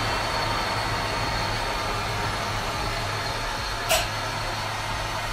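Powered spare-tire carrier on a military truck running as it lowers the spare tire: a steady mechanical whine with a thin high tone, and one short sharp noise about four seconds in.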